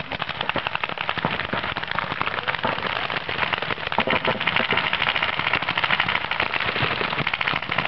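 Many paintball markers firing at once: a dense, steady crackle of shots, many a second.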